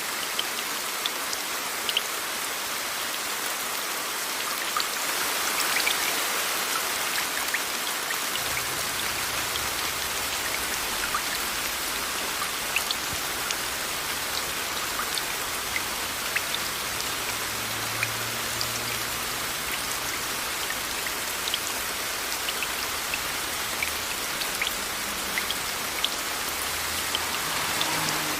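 Steady rain blended with white noise: an even hiss with many individual drops ticking sharply through it. The hiss swells briefly about five seconds in, and a faint low rumble joins about eight seconds in.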